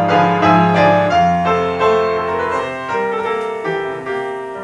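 Solo piano interlude between sung verses: a handful of chords struck in turn, each ringing on, the playing growing quieter toward the end.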